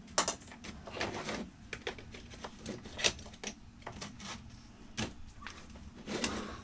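Hard plastic clicks and clatter from a cordless-tool battery pack and its charger being handled and fitted together on a workbench, a string of irregular sharp clicks with the sharpest about three seconds in.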